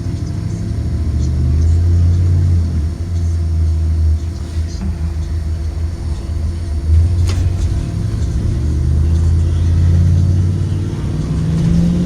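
Ford 7.3L V8 engine of a 2023 Blue Bird Vision school bus, heard from inside the bus as it drives, its low rumble swelling and easing as the bus pulls and coasts. A single sharp rattle or click sounds about seven seconds in.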